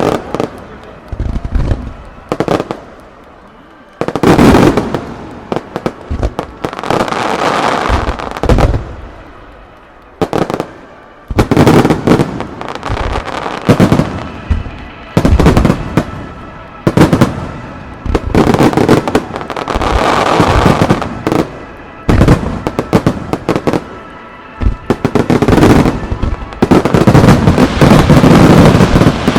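Aerial fireworks shells bursting in quick succession in a starmine barrage: loud booms with crackling between them, pausing briefly twice and building to a dense, continuous barrage near the end.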